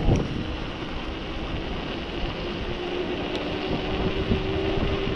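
Mountain bike riding down a trail: a steady rush of tyre noise and wind on the camera microphone, with a sharp knock at the start and a faint steady hum through the second half.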